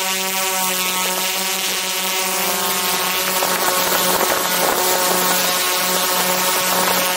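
Quadcopter drone's motors and propellers buzzing steadily in flight, heard from a camera mounted right beneath them, a droning hum of several steady tones over a hiss. The pitch wavers a little in the middle.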